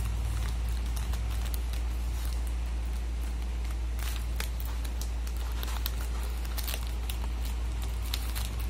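Paper and tape being handled while crafting: scattered small crinkles and clicks, a few louder ones about four to seven seconds in, over a steady low hum.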